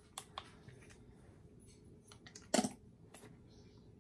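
Handling of a plastic acrylic paint tube being opened and turned over a cup: a few light plastic clicks, with one louder knock about two and a half seconds in.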